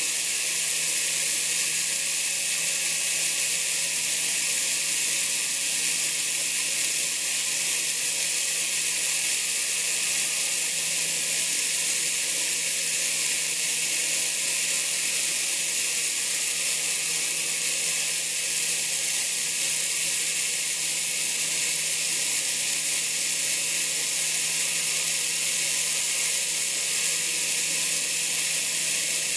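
Homemade belt sander running steadily with its abrasive belt polishing an extrusion screw: a constant hiss over a steady motor hum.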